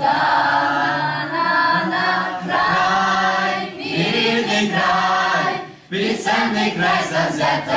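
Mixed youth choir singing the refrain of a Ukrainian folk-style song in many voices, holding long sustained notes, with a short breath break about six seconds in.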